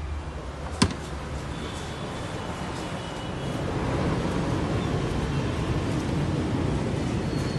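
One sharp click a little under a second in, over a steady low rumbling background noise that grows louder about halfway through.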